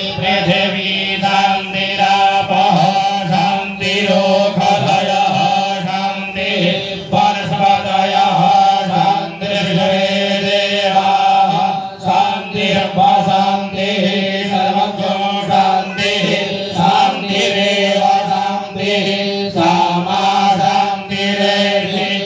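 Devotional aarti chanting: voices sing a hymn continuously over a steady low drone.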